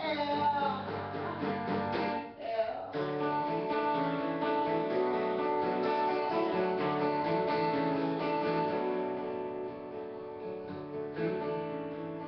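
Acoustic guitar strummed live, an instrumental passage of ringing chords. A sung line trails off right at the start, and the chords ease off a little near the end.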